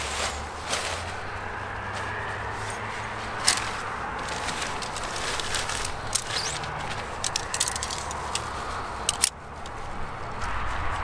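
Nylon tent fabric rustling and crinkling as a small one-person bivy tent is unrolled and handled, with scattered sharp clicks and light metallic rattles that grow thicker in the second half as the aluminium tent poles are handled, over a steady low background rumble.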